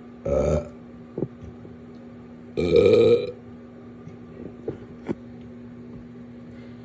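A person burping twice: a short burp just after the start, then a longer, louder one about two and a half seconds in.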